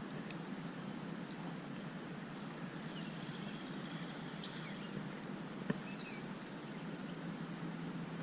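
Outdoor summer ambience: a steady background hiss with a thin, high, unbroken insect drone and a few faint bird chirps, and one sharp click a little over halfway through.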